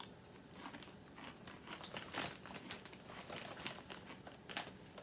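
Crunchy puffed corn snack twists (Old El Paso Fiesta Twist Cinnamon Churro) being bitten and chewed: a run of sharp, crisp crunches and crackles, thickest around the middle.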